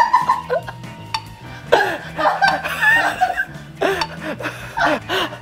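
A man laughing over light background music.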